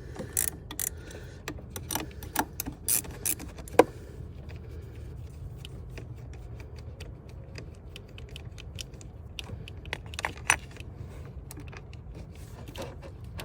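Irregular metallic clicks and clinks of a 15 mm wrench working the nut on a truck's negative battery terminal to disconnect it, most of them in the first four seconds and a few more later on.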